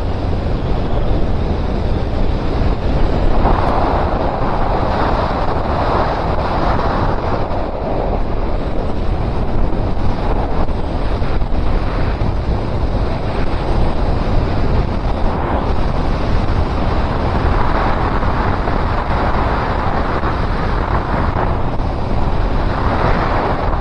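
Loud, steady wind rush buffeting the microphone on a moving motorcycle, swelling and easing twice.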